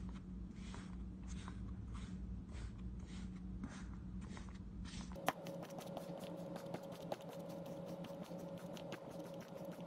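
Kinetic sand crunching and crumbling as a plastic tool is pressed down through a sliced stack of it, soft crunches coming about twice a second. About halfway through the sound changes abruptly to a denser crackle of fine, sharp clicks over a faint steady tone.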